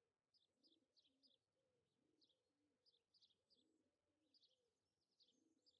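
Near silence, with only extremely faint birdsong underneath: repeated short chirps and low dove-like cooing.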